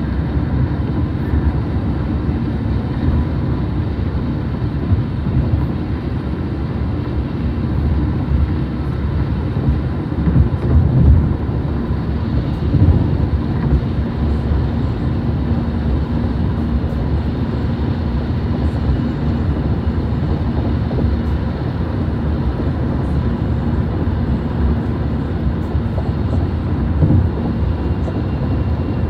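Car driving along the road: a steady low rumble of engine and road noise.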